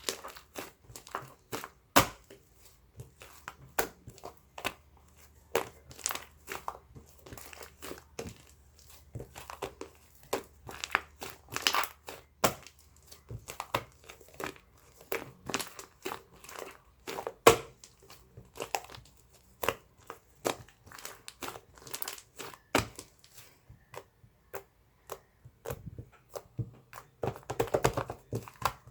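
Irregular crinkling and crackling of something being handled and crumpled, with a few sharper snaps, the loudest about two seconds in and about seventeen seconds in.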